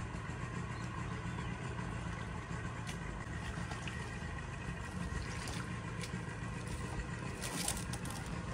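A canoe's boat motor running steadily at low speed, a constant low hum, with a few faint knocks near the end.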